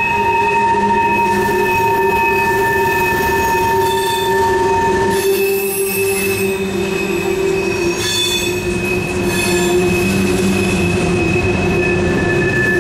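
Freight car wheels of a Norfolk Southern grain train squealing and whining against the rails on a tight curve: several steady high-pitched tones at once. One tone drops out about halfway through, and sharper high screeches come in around the middle.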